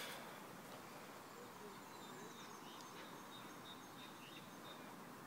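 Quiet background hiss with a few faint, short bird chirps.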